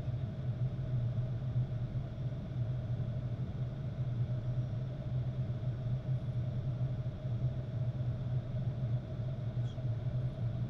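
Steady flight-deck noise of a Boeing 737-800 on final approach: an even low rumble of airflow and engines with a faint steady hum above it.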